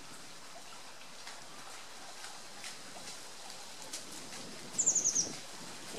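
A bird's short, high-pitched trill of about half a dozen quick notes, each dipping slightly in pitch, about five seconds in, over a faint steady outdoor background.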